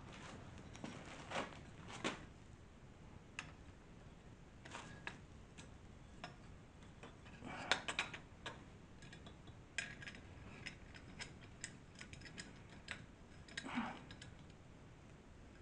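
Faint, scattered metallic clicks and taps of bolts being handled and screwed into a homemade steel fork-seal tool, with a cluster about halfway through and more near the end.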